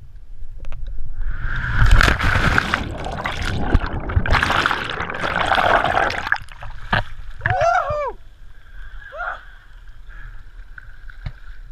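A person jumping into the sea: a short rush of air, a loud splash on entry and several seconds of churning underwater bubbling, which cuts off as the camera surfaces about six seconds in. Then two short shouts, near eight and nine seconds.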